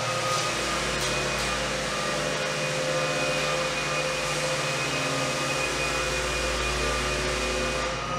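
Steady machine hum with a whooshing hiss and a few faint steady tones, holding level throughout.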